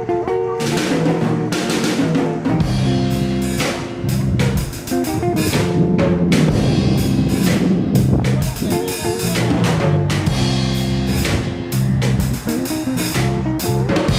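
Background music with a steady drum beat under pitched instrumental notes, guitar among them.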